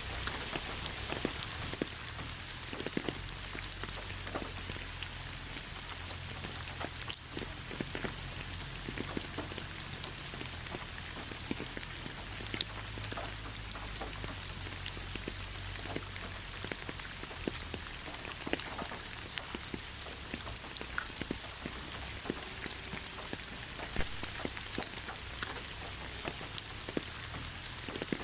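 Steady rain falling, with a constant hiss and many separate drops ticking and pattering on surfaces near the microphone.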